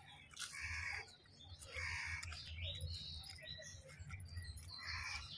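Small birds chirping, a few short falling chirps, over soft rustling and squelching from hands mixing rice on banana leaves.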